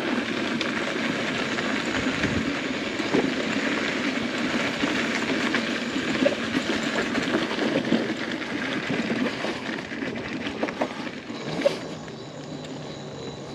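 Footsteps crunching steadily on a gravel trail, going quieter near the end as the walker steps onto grass.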